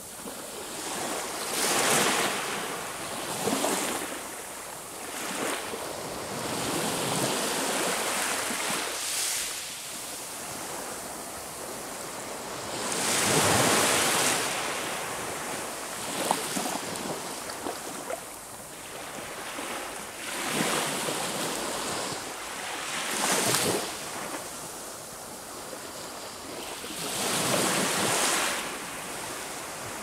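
Sea waves breaking on a shore: a steady rush of surf that swells and fades as each wave breaks, a few seconds apart at irregular intervals. The loudest break comes about halfway through.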